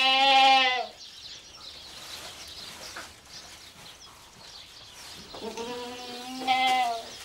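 Goats bleating: two calls, a short one about a second long at the start and a longer, wavering one about five and a half seconds in.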